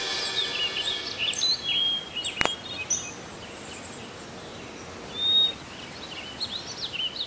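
Birds chirping and tweeting in short, quick calls, with one longer whistled note a little after five seconds in, over a faint hiss. A single sharp click comes about two and a half seconds in, and the tail of the music dies away at the very start.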